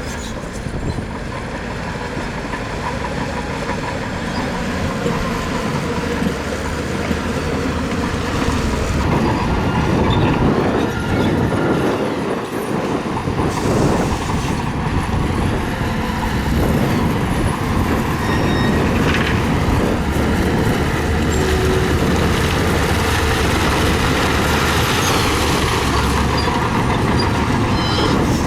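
Crawler bulldozer working, its diesel engine running steadily under a continuous heavy mechanical rattle while it spreads gravel.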